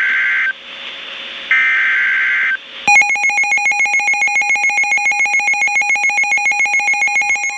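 The end of an emergency alert's digital SAME header: screeching data bursts about a second long, a second apart. From about three seconds in, a weather alert radio's electronic alarm tone pulses rapidly, a few times a second, announcing a new warning.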